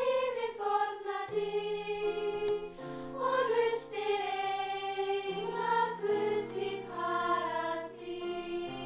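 A choir sings a slow melody over held chords that change every second or two.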